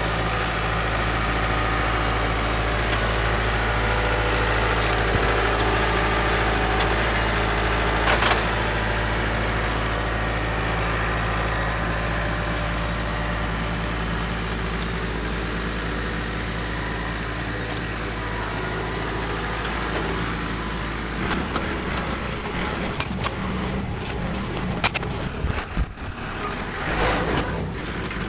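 John Deere 4052R compact tractor's diesel engine running steadily as it works brush with its grapple. About two-thirds of the way through the sound changes abruptly to a more distant engine with repeated snapping and crackling of branches as the tractor pushes brush.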